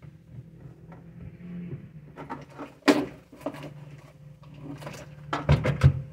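Cloth rubbing over a hair dryer and the dryer being handled in its wall-mounted holder, with a sharp knock about three seconds in and a quick cluster of knocks near the end as it is set back in the holder.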